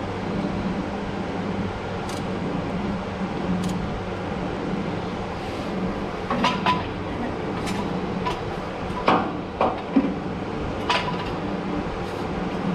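Metal tools and jack hardware clinking and knocking: about seven sharp metallic clinks, some with a brief ring, starting about six seconds in, over a steady low hum.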